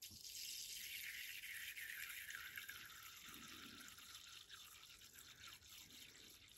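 Water being poured into a small water dish: a thin steady trickle that slowly grows quieter.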